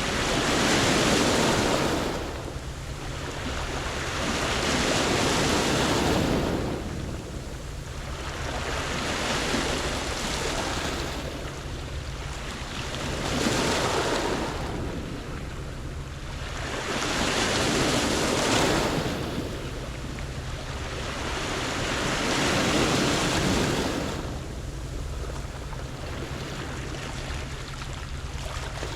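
Sea waves breaking and washing up a pebble beach, one surge about every four to five seconds.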